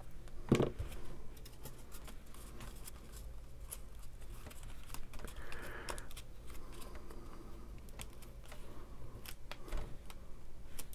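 Cardstock being handled by hand as a glued paper panel is pressed and smoothed down: faint paper rustling and sliding with scattered light taps. A soft knock comes about half a second in, and a brief rustle about halfway through.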